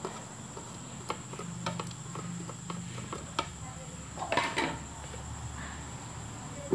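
Light scattered clicks and knocks of kitchen handling: shredded green mango scraped off a woven plate into a mortar, the plate set aside and a jar picked up, with a small cluster of knocks about four and a half seconds in. A steady high thin whine runs underneath.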